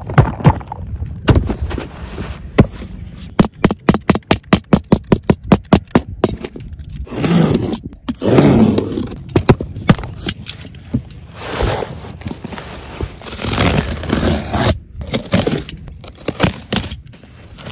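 A cardboard parcel being opened by hand: a fast run of sharp clicks, then rough scraping and tearing of packing tape and cardboard, and a utility knife slicing through the cardboard near the end.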